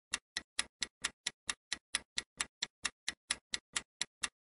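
Countdown-timer sound effect: an evenly paced clock tick, about four to five ticks a second.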